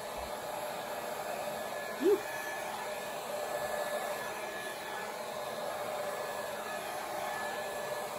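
Handheld hair dryer running steadily, its rushing air and a faint steady whine blowing wet acrylic paint across the canvas. A brief, sharp, rising chirp about two seconds in.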